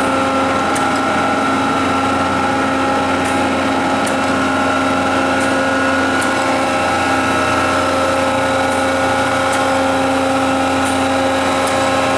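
Arter (Sundstrand) H horizontal spindle rotary surface grinder running in its automatic cycle, the main wheel spindle turning with a steady hum of several fixed tones over a noisy bed, with faint high ticks now and then.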